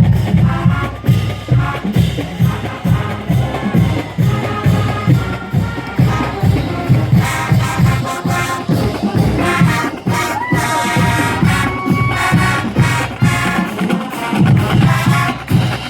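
College marching band playing: a brass melody over a steady drum beat.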